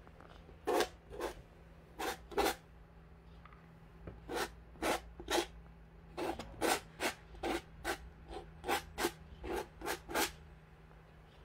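Palette knife scraping thick paint across canvas in short strokes, about sixteen separate scrapes that come in small groups.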